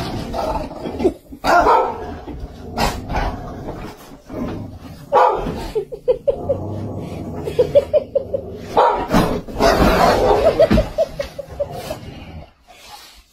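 Dogs barking in repeated bursts, several times over, with rapid strings of short yapping calls in between.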